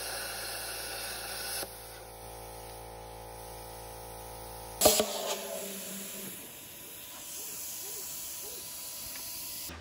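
Handheld plasma cutter cutting through a rusty steel tube: a steady hiss of the arc and air, joined by a buzzing hum for a few seconds. A sharp clack comes about five seconds in, then a fainter hiss.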